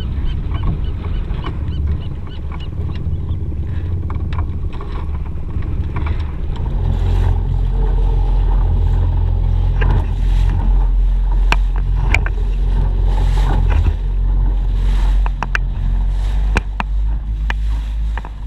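Motorboat running across open water: a heavy low rumble of motor and wind that grows louder about seven seconds in, with frequent sharp knocks and splashes of water against the hull.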